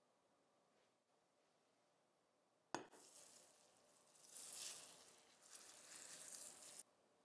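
Almond milk poured from a glass jug onto dry quinoa, chia seeds and cinnamon in a glass baking dish: a sharp click, then a steady splashing trickle that grows louder and stops abruptly near the end.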